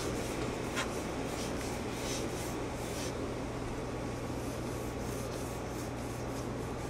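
Hands rolling Play-Doh out into a rope on a tabletop: soft, irregular rubbing, fading after about three seconds, over a steady low hum.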